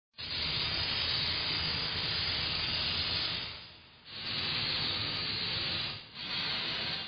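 Intro sound effect: a steady hiss in three bursts, the first about three seconds long, then two shorter ones, each after a brief drop.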